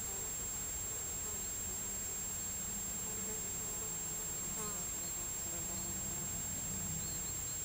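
Flying insects buzzing, a wavering hum of wingbeats that swells and fades.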